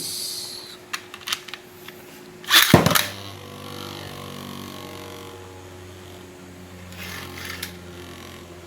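Beyblade X Golem Rock top launched with a loud rip of the launcher, then spinning with a steady low hum that slowly fades; its spin is quiet. A few light clicks come just before the launch.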